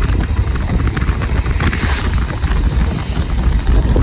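Strong wind buffeting the microphone as a loud, unsteady low rumble, with a dense patter of small ticks over it.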